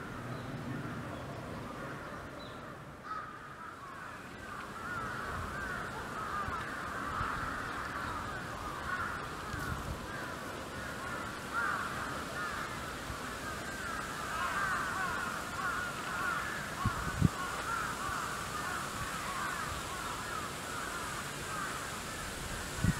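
A flock of birds calling, many short calls overlapping in a continuous chatter. A couple of low thumps come about three-quarters of the way through.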